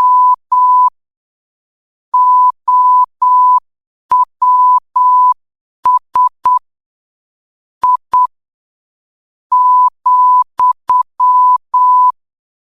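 Morse code sent as a single steady beep tone, keyed on and off in short dots and longer dashes. The pulses come in groups, with longer pauses between letters and words.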